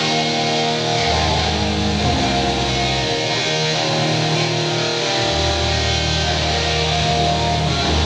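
Live rock band playing a song: electric guitar over bass and drums, with low bass notes changing every second or two.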